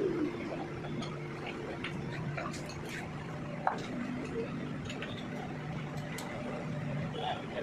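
Small clicks and taps of hands and tools working on the stopped wood planer's steel rollers, one sharper tap a little past halfway, over a steady low hum.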